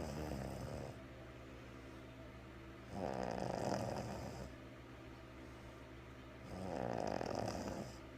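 A woman snoring, congested with a cold: loud snores about every three and a half seconds, each lasting a second or more.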